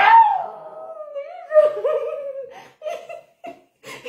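Loud laughter: one long drawn-out cry that slowly falls in pitch and turns shaky, followed by short bursts of giggling.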